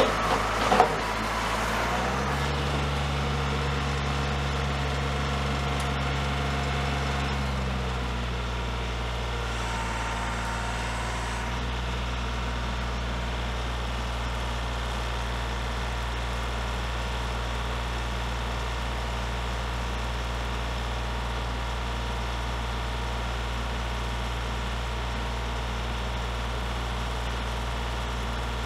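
Kioti 35-horsepower compact tractor's diesel engine running at a distance. A few sharp knocks come in the first second. The engine note rises about two seconds in, holds, and drops back to a steady idle at about seven seconds.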